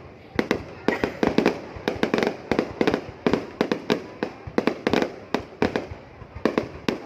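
Fireworks going off in a rapid, irregular string of sharp bangs, several a second, easing off briefly a little before the end.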